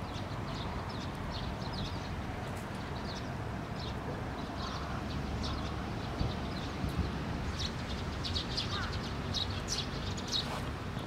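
Small birds chirping: short, high calls, a few at first and more frequent in the last few seconds, over a steady low background rumble.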